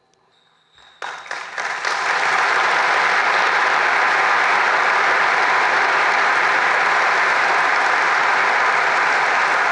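Audience applause breaking out about a second in after a brief hush, building quickly and then holding steady.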